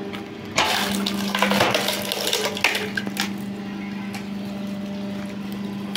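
Hydraulic log splitter running: its motor-driven pump hums steadily, with a loud rush of noise from about half a second in lasting about a second and a shorter one near three seconds, the sound of hydraulic fluid being pushed through the valve.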